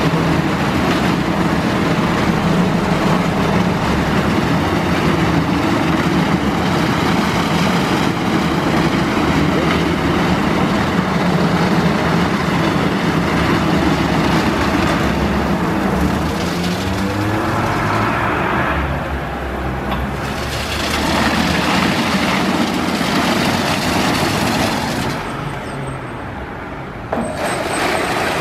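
Istobal M1 rollover car wash running its brush wash: large rotating brushes scrubbing a car, with the machine's motors running. The motor tone shifts about two-thirds of the way in, the sound drops quieter near the end, then comes back suddenly.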